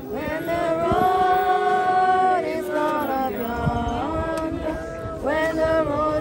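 Mourners at a graveside singing together: a slow sung melody of men's and women's voices with long held notes.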